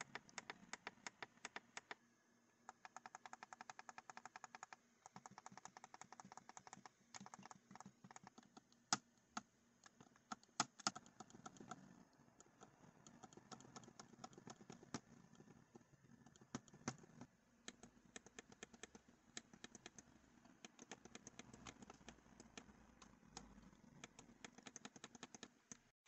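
Gamesir G7 SE Xbox controller's buttons being clicked rapidly and repeatedly, first the left thumbstick press and later the shoulder bumper. It is a steady run of quick plastic clicks, about six a second, with a few louder clicks near the middle.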